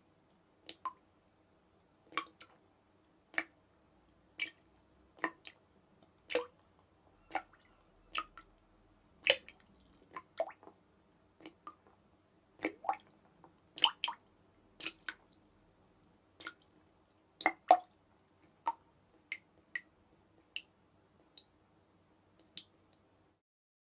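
Water dripping: single drops falling at uneven intervals, roughly one or two a second, each a short plop, over a faint steady background. The drops stop shortly before the end.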